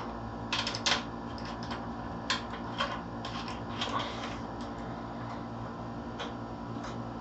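Irregular light clicks and taps from hands working on a PC case while a thumb screw is being fitted. The clicks are bunched in the first few seconds, with two more later, over a faint steady hum.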